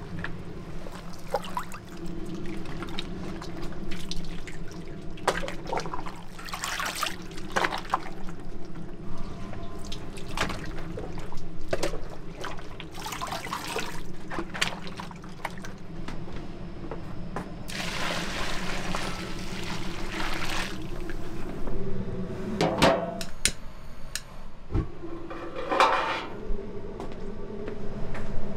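Water pouring and splashing in several bursts, the longest lasting a few seconds, over a steady low hum.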